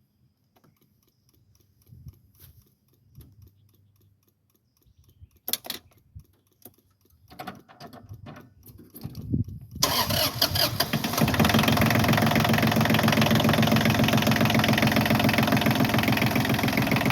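Faint knocks and clicks, then the Massey Ferguson 1220 compact tractor's diesel engine cranks on the starter about nine seconds in, catches and settles into a steady idle on freshly changed oil.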